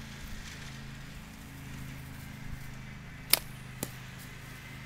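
A slingbow shot: one sharp snap as the bands release the arrow about three seconds in, then a fainter knock about half a second later.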